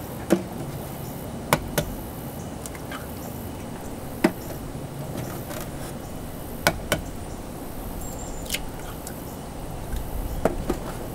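Raw eggs being cracked one after another into a mixing bowl: sharp taps of shell on the rim, several coming in quick pairs, a couple of seconds apart.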